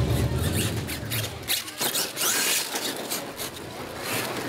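Radio-controlled scale monster truck running on loose gravel: its motor whining in short throttle pulses while the tyres scatter gravel, with quick clicks and rattles. A low hum stops about half a second in.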